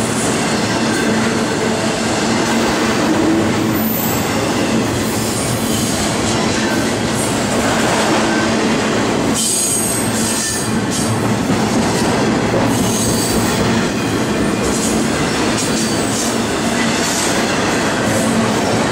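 Intermodal freight train's container well cars and trailer cars rolling past close by: a steady, loud rumble and rattle of steel wheels on rail, with brief high-pitched wheel squeals now and then.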